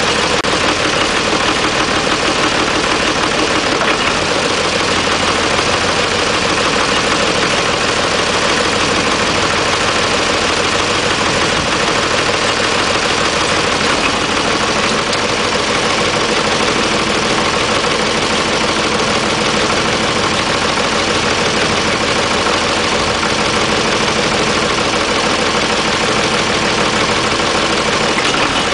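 Oliver tractor engine running steadily, close by, while its front loader lifts a heavy lathe hung from a strap.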